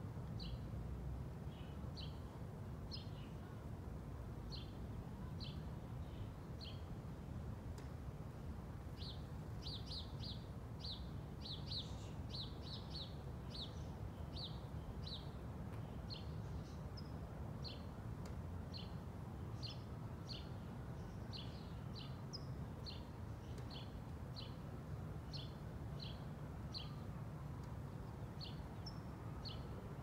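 Small birds chirping, short high chirps repeated every half second or so, coming thick and fast for a few seconds about a third of the way in. A steady low outdoor rumble runs underneath.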